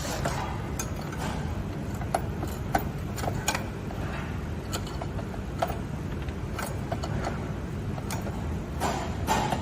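Irregular light clicks and taps of hand work on a scooter's parts, over a steady low hum.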